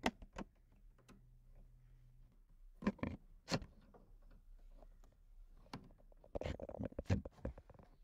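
Small flat-blade screwdriver clicking and knocking against a car's window winder handle and its spring lock clip as the clip is pried loose: two sharp clicks at the start, a cluster of clicks about three seconds in, and a longer run of knocks and rattles near the end.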